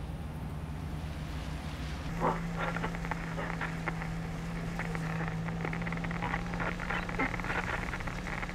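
A car driving on a night road: a steady low engine and road hum that grows stronger about two seconds in, under a stream of irregular light clicks and crackles.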